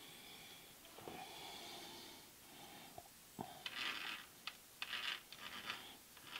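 Ratchet wrench turning the mill head's adjusting screw: a soft rasp, a couple of single clicks, then three short bursts of rapid clicking in the second half. The head is being backed off to take out the backlash and brought back to the reading.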